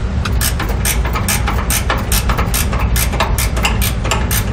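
Ratchet wrench with a 15 mm socket loosening the sway bar end link bolt: a run of sharp clicks, about four or five a second, over a steady low hum.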